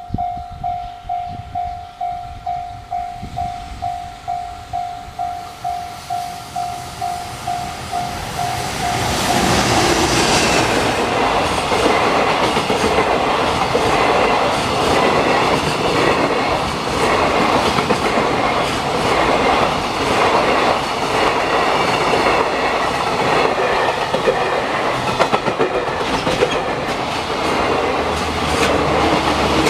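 Japanese level-crossing warning bell ringing about twice a second, then a train passing at speed from about nine seconds in, its wheels clattering over the rail joints and drowning out the bell.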